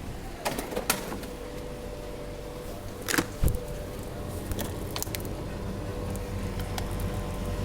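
Air-conditioning unit running with a steady low hum and a faint steady tone, while several sharp clicks and knocks of handling come over it, the loudest a little past the middle.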